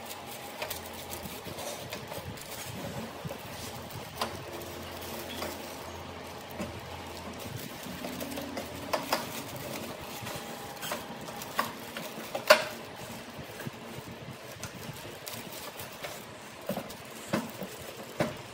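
Clear plastic wrap and polystyrene foam packing handled and pulled off a gas stove: irregular crinkling and rustling with scattered clicks and knocks, the sharpest about twelve seconds in.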